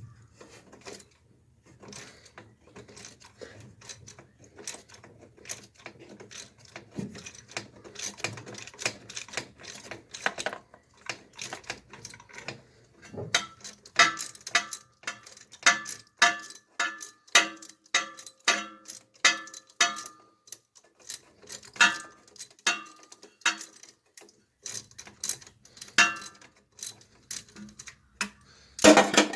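Ratchet handle with a 9/16 socket on an extension clicking as it backs out the thermostat housing bolts: scattered ticking at first, then a steady run of about two clicks a second with a short metallic ring, and a louder clunk near the end.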